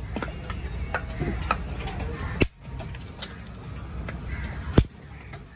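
Conch shell being chipped and cracked apart by hand: irregular sharp clicks and taps as pieces of shell break off, with two louder cracks about two and a half seconds apart.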